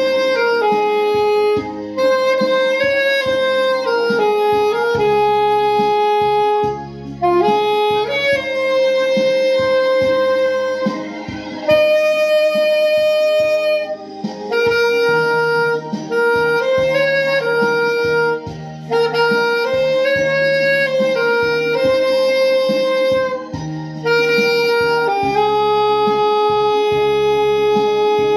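Alto saxophone playing a slow ballad melody in long held notes, with short breaths between phrases, over a recorded backing accompaniment.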